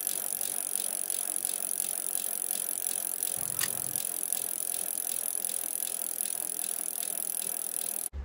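Bicycle freewheel ticking steadily as the bike coasts, about four clicks a second over a steady hiss, with one sharper click a little past three seconds in; it cuts off suddenly near the end.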